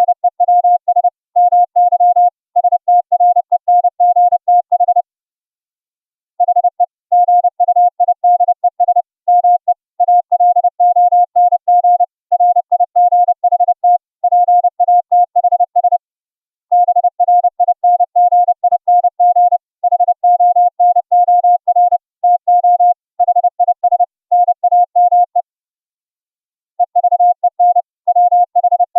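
Morse code sent as a single steady pure tone from FLdigi, keyed on and off in dots and dashes at a brisk speed. The keying stops for about a second and a half twice: about five seconds in and again near the end.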